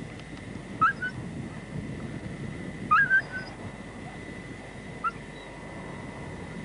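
Three short, high squeals from an animal, each rising quickly in pitch, coming about two seconds apart over outdoor wind noise.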